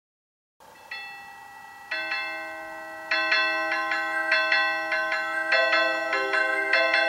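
Electronic bell chimes of an Aurora Sound melody clock playing its opening tune in a low-pitched arrangement. After a moment of silence, single ringing notes come in about a second apart, then a quicker melody of overlapping chimes starts about three seconds in.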